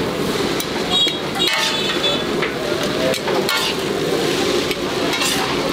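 Chow mein noodles sizzling on a large flat metal pan while two metal spatulas toss and scrape them, with several sharp metallic clinks of spatula on pan.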